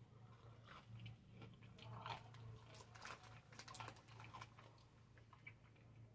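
Faint close-up chewing and crunching of a candy-coated grape: irregular crunches through the first four seconds or so, thinning out near the end.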